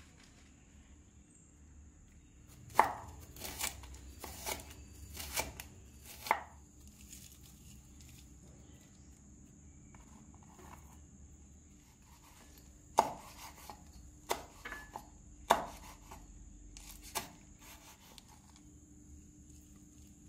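Sharp knocks and taps of food preparation come in two runs of about six strokes each. The first run starts a few seconds in and the second about halfway through.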